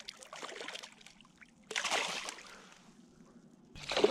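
A hooked smallmouth bass splashing at the surface beside a canoe, in several bursts, with a big splash near the end as it fights.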